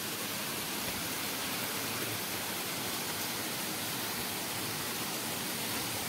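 Steady rushing of a waterfall: an even hiss with no breaks or changes.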